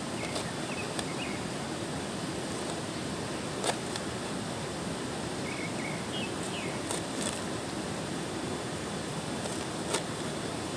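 Steady outdoor background hiss with a few sharp clicks and some faint, short high chirps.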